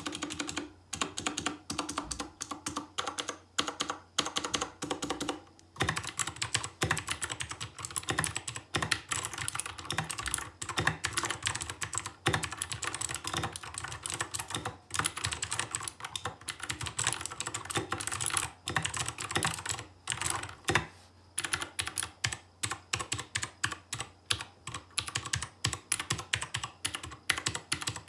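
Royal Kludge RK61 60% mechanical keyboard fitted with custom switches, typed on quickly and continuously: a dense stream of key clicks and clacks, with short pauses about five seconds in and again past the twenty-second mark.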